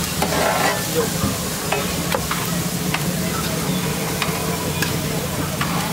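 Scrambled eggs sizzling on a large flat griddle while a metal spatula stirs and scrapes them, with scattered sharp clicks of the spatula against the griddle over a steady low hum.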